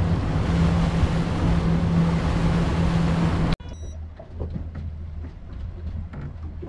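Boat running at speed on twin Mercury Verado V8 outboards: a steady engine drone under loud wind and spray rush. About three and a half seconds in it cuts off suddenly to a much quieter stretch with only a low engine hum at idle.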